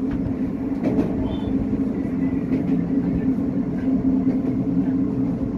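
Diesel railcar running along the track, heard from inside the car: a steady engine hum over running noise, with a pair of clacks from wheels crossing rail joints about a second in.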